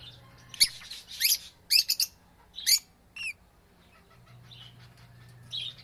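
African lovebirds giving short, shrill chirps, about six quick calls in the first three seconds or so, then going quieter.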